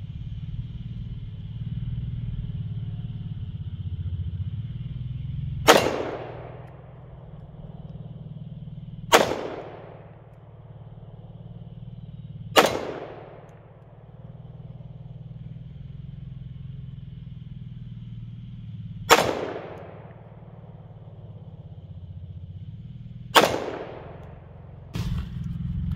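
Five single .22-calibre gunshots fired a few seconds apart, each sharp crack trailing off in a short echo, over a steady low rumble.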